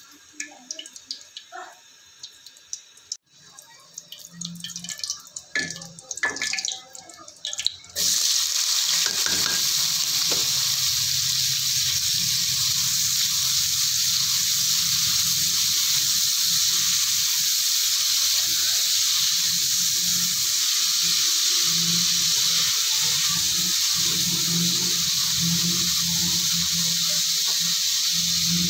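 Oil frying in an aluminium kadai. At first there are scattered small crackles and spatula scrapes from cumin seeds in the oil. About eight seconds in, a loud, steady sizzle starts suddenly as chopped onion and vegetable pieces go into the hot oil, and it carries on while they are stirred.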